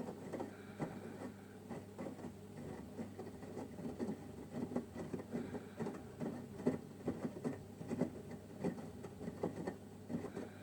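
Samsung WW9000 Ecobubble washing machine running a cold-temperature wash: a steady low hum under an irregular patter of soft knocks and splashes from the wet laundry and water in the turning drum.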